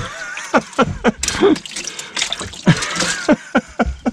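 Water splashing and trickling in a boat's live-bait tank as a hand reaches in for a live baitfish.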